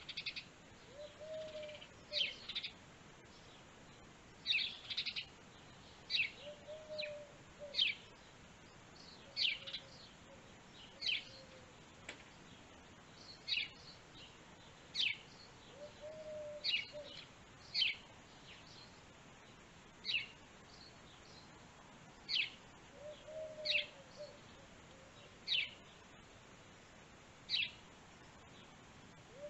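Birdsong: short, high chirps repeating about every second or two, with a lower, brief call from another bird every five or six seconds.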